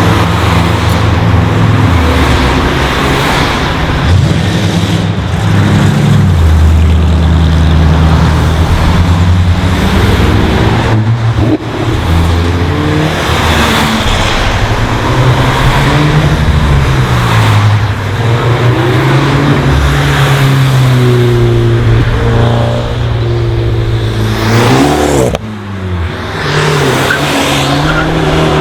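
Modified cars driving past one after another, their engines revving and accelerating, the engine note rising and falling in pitch as each car goes by.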